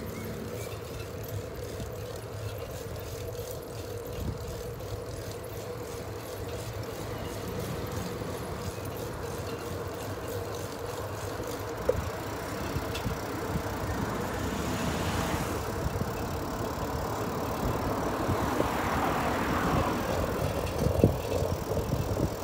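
Steady rolling noise of a bicycle ride on an asphalt street, growing louder in the second half, with a sharp click about twelve seconds in.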